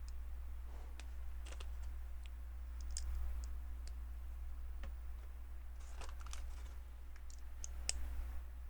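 LEGO plastic bricks clicking as pieces are handled and pressed together: scattered light clicks at irregular moments, over a steady low hum.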